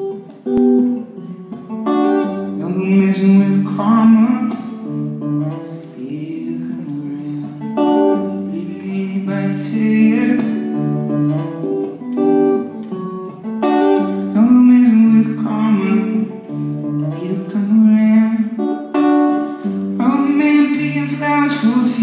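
Live solo acoustic guitar strummed, with a man singing over it.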